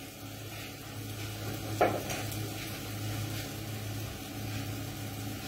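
Faint sizzling from a frying pan of chicken hash over a steady low hum. There is one sharp clink of a metal utensil about two seconds in.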